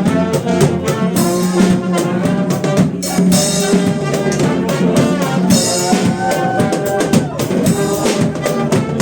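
A brass band playing live: trumpets and trombones over a steady drum beat, with a held note in the horns about two thirds of the way through.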